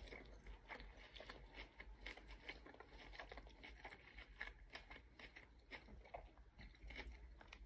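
Faint, irregular chewing: soft mouth clicks from eating a chewy fresh spring roll.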